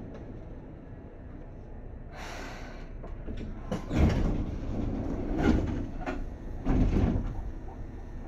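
Sliding doors of a Seibu 2000 series commuter train closing at a station stop: a short hiss about two seconds in, then heavy thumps about four, five and a half and seven seconds in as the air-operated door panels slam shut.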